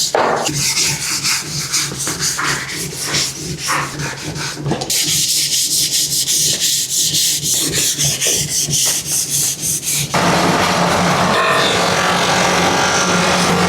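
Hand-sanding a cricket bat handle: quick, rhythmic back-and-forth rubbing strokes of abrasive on wood. About ten seconds in this gives way to a steady machine hum.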